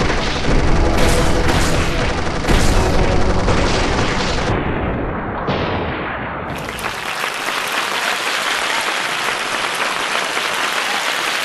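Battle sound effects: booms and gunshot-like cracks over a dense rumble, with several sharp blasts in the first three seconds. About halfway through this gives way to a steady hiss with little bass.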